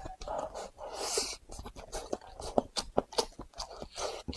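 Close-miked eating sounds: chewing with wet clicks and lip smacks, and a short breathy hiss about a second in.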